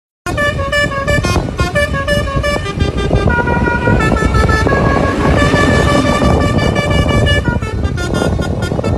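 Basuri musical bus horn playing a tune in quick stepped notes, with a few longer held notes in the middle, over a steady low rumble.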